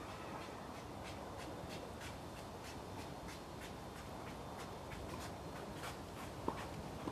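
Footsteps scuffing on an outdoor tennis court, a quick run of light scraping steps, over a steady outdoor background hiss; a tennis ball gives one sharp knock near the end.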